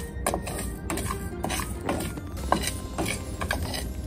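A wooden spatula stirring and scraping dry-roasting rice and glutinous rice in a frying pan: a run of irregular scrapes and clicks as the golden grains are turned.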